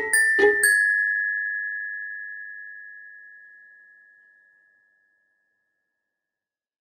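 Glockenspiel: a few quick struck notes stepping slightly down in pitch, the last one ringing on and fading away over about four seconds.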